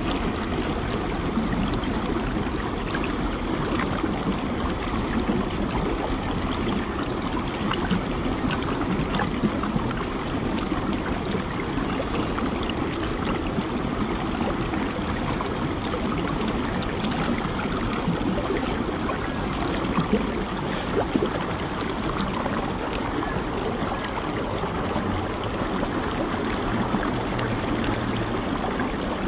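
Shallow stream running steadily over rock slabs, a continuous rush of flowing water.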